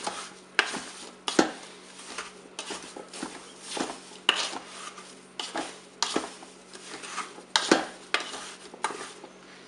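Wooden spoon stirring granulated sugar with apple and strawberry pieces in a Cookeo multicooker's bowl: irregular scraping and knocking strokes against the bowl, about two a second, stopping shortly before the end.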